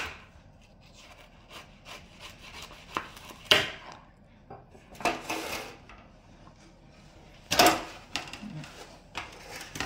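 A large kitchen knife slicing through watermelon and knocking on a plastic cutting board: a few sharp knocks a few seconds apart, with softer scraping and rubbing between. Near the end there is a loud, short rustle as a slice is set into an aluminium foil pan.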